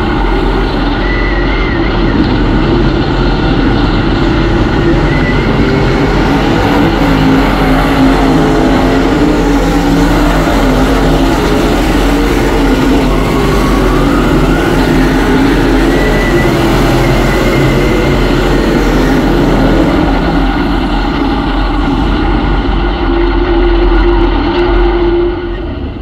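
Dirt-track race car's engine running hard on track, heard from a camera mounted inside the car: a loud, steady engine drone that holds throughout.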